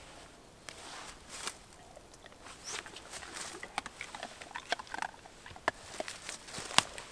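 Rustling and shuffling in dry leaf litter as a person moves and handles gear, with many scattered sharp clicks that grow busier from about halfway through.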